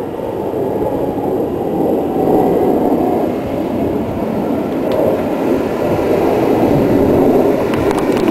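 Loud, steady roar of an aircraft passing overhead, with a faint whine rising through it.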